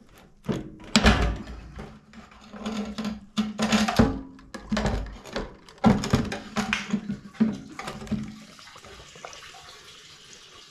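Old fuel pump assembly being lifted out of a 2000 Chevy S10's fuel tank: fuel splashing and dripping as the plastic reservoir comes up, with irregular knocks and scrapes of the assembly against the tank opening. It dies away about eight and a half seconds in.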